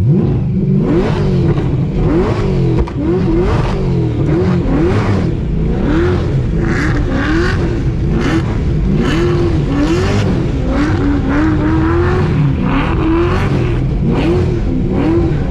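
A burnout car's engine revving hard, its pitch swinging up and down about once a second as the driver works the throttle during a burnout.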